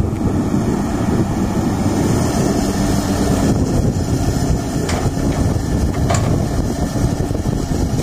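Hyundai crawler excavator's diesel engine running steadily as the machine digs and swings its bucket of soil, with two faint knocks about five and six seconds in.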